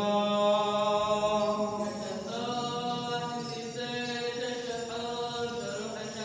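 Slow liturgical chant sung in long held notes that move from pitch to pitch, over a steady low held tone.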